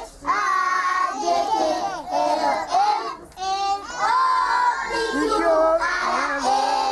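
A group of children singing loudly together, many voices at once, with a short break about three seconds in.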